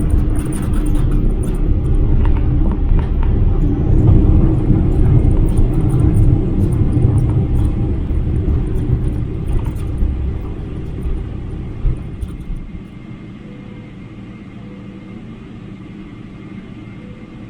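Loud low rumble of a Boeing 777-300 heard from inside the cabin, with scattered light rattles in the first few seconds; the rumble drops off sharply about thirteen seconds in to a much quieter steady hum.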